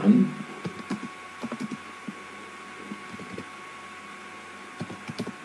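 Typing on a computer keyboard: scattered key clicks at an uneven pace, with a faint steady hum underneath.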